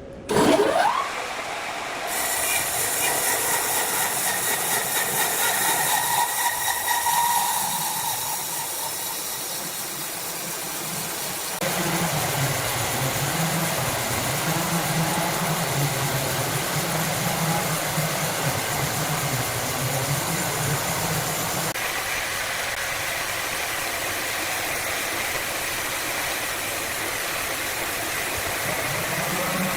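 Wood-cutting saw machinery running with a steady, loud noise, which shifts in texture a few times. A quick rising sweep comes about half a second in.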